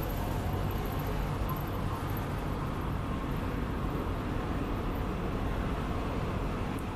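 Steady town street ambience: a low, even rumble of distant road traffic.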